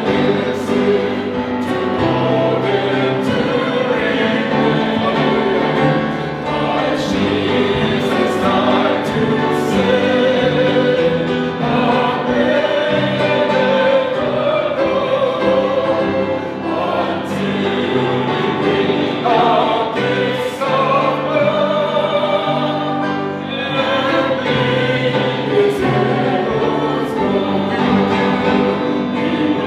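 A church choir singing a hymn in parts, with held low accompanying notes under the voices.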